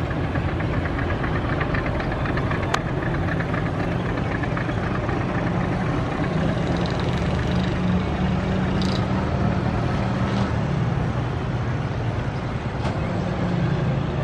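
Diesel locomotive engine running with a steady low rumble as the light engine moves slowly along the track.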